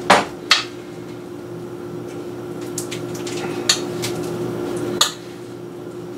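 A metal spoon clinking and scraping against an enamel bowl while stuffing is scooped into potato skins on a metal baking sheet: a few sharp clinks, the loudest right at the start and about half a second in, with more near four and five seconds.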